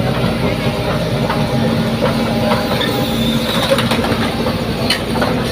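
Excavator's diesel engine running steadily, with a few short sharp knocks.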